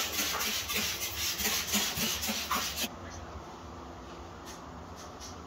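Scrub pad rubbing back and forth over a soapy, wet windshield: rapid rhythmic scrubbing at about four strokes a second that stops about three seconds in.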